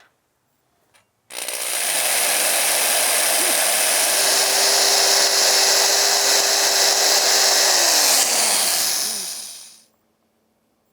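Electric drill boring a hole into the wooden stretcher of a chair. It starts about a second in, runs steadily for about eight seconds, and winds down with a falling pitch near the end.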